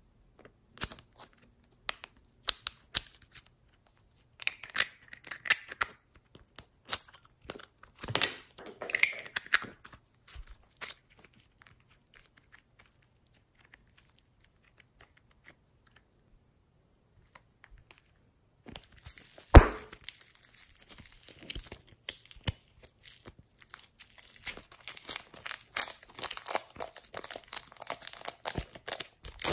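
Slime being handled, stretched and pressed: scattered sticky clicks and pops, a pause, one loud sharp snap about two-thirds of the way through, then dense crackling and tearing sounds to the end.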